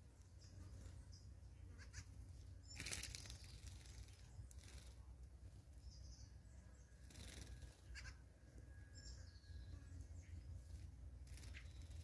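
Laughing dove wings flapping as a bird flies in and lands, a short whoosh about three seconds in and another flutter a little past seven seconds. Faint distant bird chirps sound over a low rumble.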